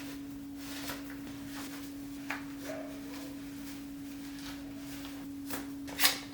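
A steady low hum at one constant pitch, with a few faint clicks and a sharper knock near the end.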